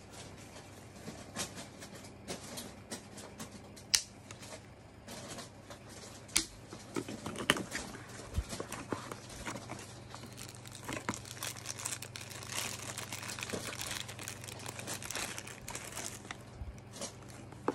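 Handling noise from a plastic wall charger and its detachable plug heads being taken out of their packaging and fitted: scattered clicks and taps with stretches of rustling. The loudest is a sharp click about four seconds in, and there is a denser run of rustling and ticking past the middle, over a faint steady low hum.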